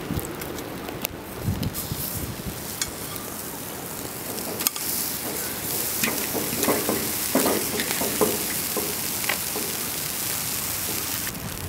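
Buttered grilled cheese sandwich sizzling in a cast iron skillet over a wood fire, the hiss growing stronger about halfway through. Scrapes and clicks of a metal spatula against the pan come as the sandwich is flipped.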